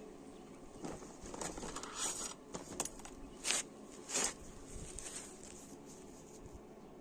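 Irregular scraping and clicking handling noises, with two louder rasping scrapes a little past the middle.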